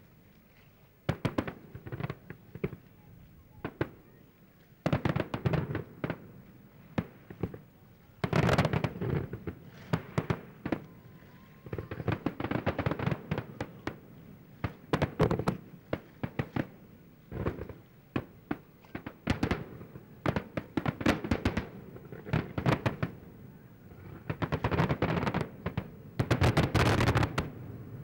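Aerial fireworks display: volleys of sharp bangs and crackling bursts come in quick clusters with short lulls between them, beginning about a second in and densest near the end.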